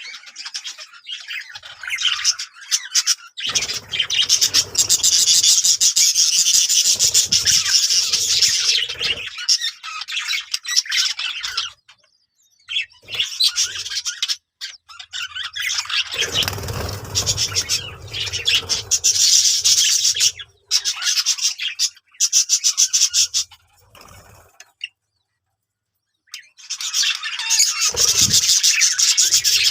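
Budgerigars chattering and warbling in long bursts of rapid chirps, broken by short pauses and a silence of about two seconds near the end.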